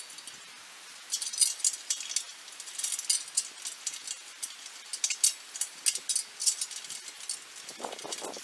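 Irregular light metallic clinking and rattling of bolts and metal hardware being handled while a bench is bolted together, with a couple of duller knocks near the end.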